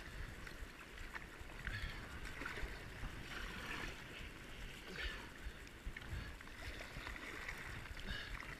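Whitewater river rushing around a kayak, with irregular splashes and a gusty low wind rumble on the microphone.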